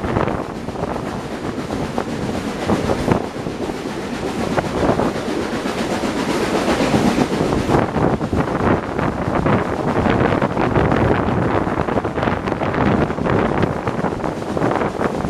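Wind buffeting a microphone held out of the window of a moving steam-hauled passenger train, over the steady running noise of the coaches on the rails.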